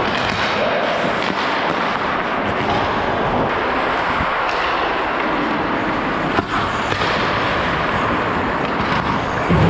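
Ice hockey skates scraping and carving on the ice, a steady crackling hiss heard close up from a skating referee's helmet microphone, with scattered stick-and-puck clacks and a sharp knock about six and a half seconds in.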